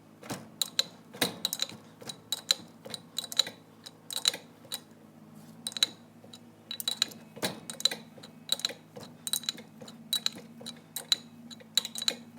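Repeated sharp metallic clicks, a few a second in irregular runs, from a wrench working the puller bolt that draws the oil pump out of a Jaguar Compact A overdrive.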